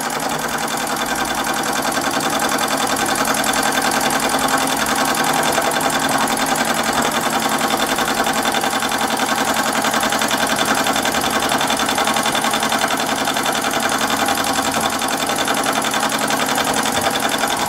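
Empire B-43 model steam engine running steadily under good steam pressure, its cylinder and flywheel making a fast, even beat.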